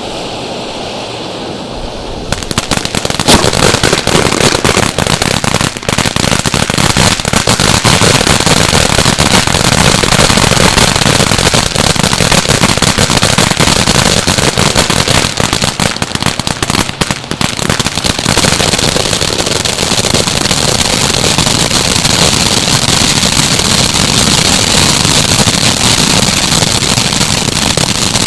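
Phantom Crown Jewel ground fountain firework spraying, with a dense, rapid crackle that starts loud about two seconds in and keeps going steadily.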